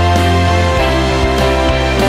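Background music with a steady bass line and sustained notes.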